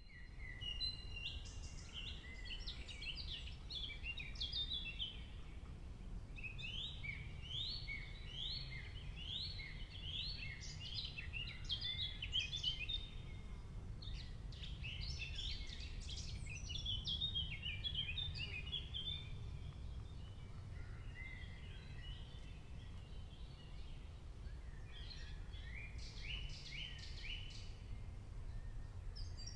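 Songbirds chirping and singing in many quick, rising notes, with a few short lulls, over a low steady rumble.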